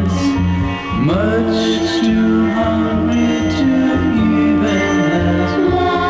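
Music: a recorded song with band accompaniment and held notes. A note slides upward about a second in.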